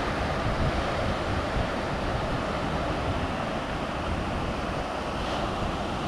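Steady wind noise on the microphone mixed with ocean surf washing ashore.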